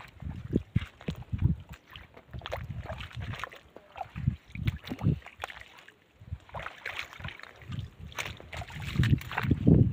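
Wind buffeting a phone microphone in uneven low rumbles, with scattered small clicks and splashes from footsteps on wet reef rock and shallow water. It drops out briefly about six seconds in.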